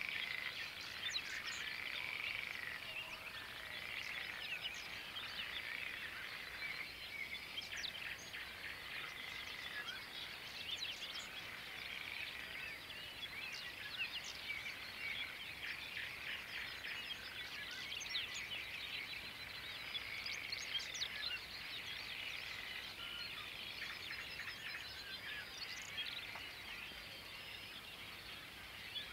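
Dawn chorus over a meadow: many birds singing and chirping at once, overlapping with a chorus of frogs calling in repeated bouts, a steady mass of calls with no single voice standing out.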